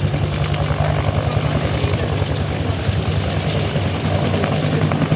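AH-1 Cobra attack helicopter at takeoff power: the two-blade main rotor beats in a rapid, even rhythm over the steady running of its turbine engines.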